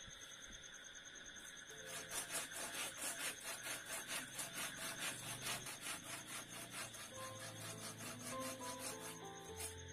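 Hand saw cutting through a thin bamboo pole in quick, even back-and-forth strokes. The strokes start about two seconds in and stop just before the end.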